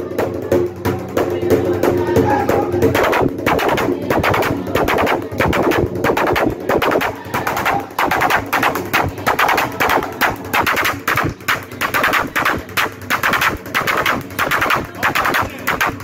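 Fast, steady rhythmic percussion, with voices singing or chanting over it during the first few seconds.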